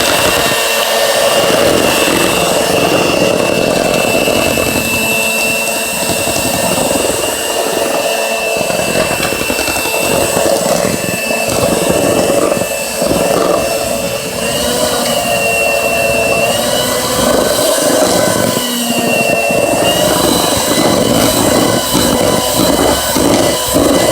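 Electric mixer running steadily while beating cornbread batter, its motor whine wavering slightly in pitch as the beaters work through the mix.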